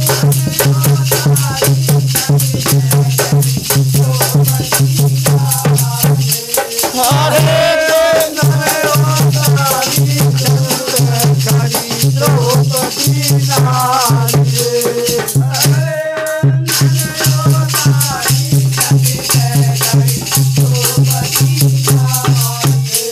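Instrumental interlude of a Holi folk song: a chimta (steel fire tongs with jingle rings) clashing and jingling fast and continuously over a steady drum beat. The drum drops out briefly twice, around six seconds in and again around sixteen seconds in.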